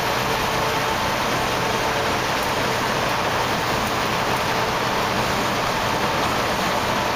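Steady road noise inside a semi-truck cab while driving: an even rushing of tyres and wind with the engine's faint steady hum beneath.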